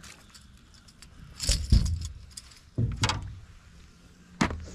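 Handling noise as a bass is unhooked with pliers while held in a plastic lip gripper: a heavy thud against the boat about a second and a half in, two more knocks around three seconds, and a sharp click near the end, with light metallic clinks.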